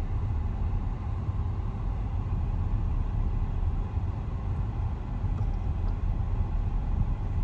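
Steady low rumble of a car driving at road speed: engine and tyre noise, heard from inside the cabin.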